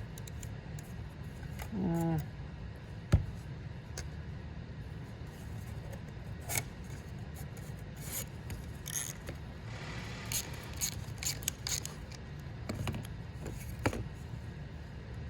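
Hands working a piston ring compressor and ratchet around an oiled piston. Scattered rubs, scrapes and small metal clicks, with a sharp knock about three seconds in and a busier run of scraping and clicking a little past the middle, over a steady low hum.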